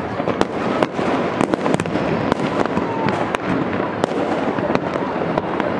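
Fireworks and firecrackers going off all over a city at once. A continuous din of distant bangs is broken by sharp, irregular cracks several times a second.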